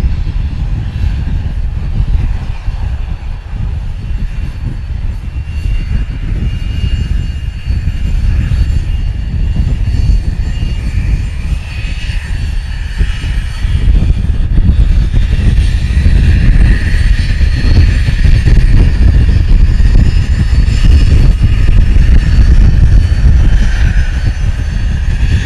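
BAe 146-200 airliner's Lycoming ALF502 turbofan engines running, a high whine of several steady tones over a heavy low rumble. The whine grows stronger and louder about halfway through.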